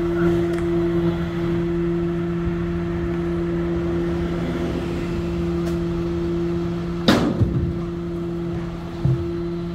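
Rear-loading garbage truck running with a steady mechanical hum. About seven seconds in there is a loud bang followed by smaller knocks, and another knock comes near the end, as debris is loaded into the truck.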